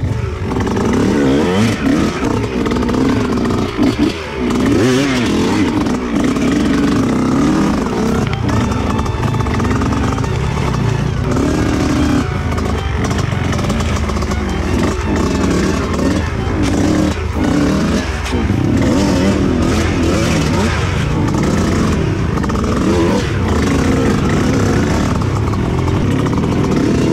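Two-stroke Kawasaki Ninja engine in a dirt-bike build, freshly rebuilt, being ridden with the pitch rising and falling as the throttle opens and closes.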